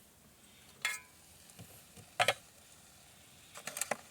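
A few sharp metallic clinks at the pot of a 12-volt RoadPro roaster: one about a second in, a louder one just after two seconds, and a quick cluster near the end, over a faint sizzle of food cooking.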